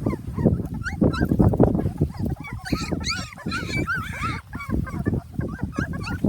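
A litter of puppies whimpering and yelping, many short high cries overlapping, thickest in the middle, over low rustling noise.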